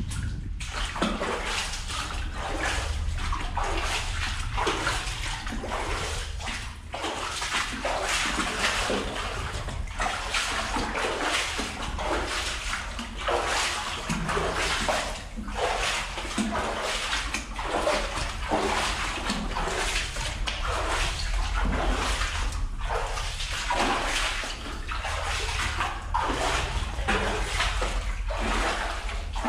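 Footsteps wading through shallow water in a flooded mine adit, a splash and slosh at each step, about one step a second.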